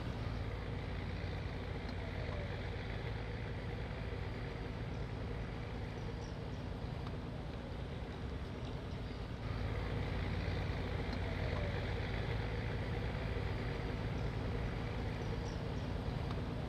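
Steady low engine drone with a faint hum, growing louder about nine and a half seconds in.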